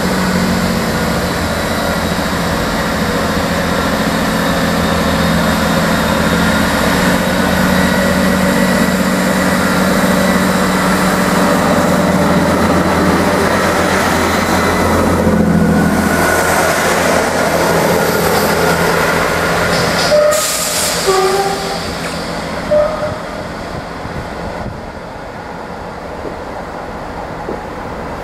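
Diesel multiple-unit trains running through a station: the steady drone of their diesel engines under the noise of the wheels on the rails. A few short high notes come about two-thirds of the way through, and the sound drops somewhat near the end.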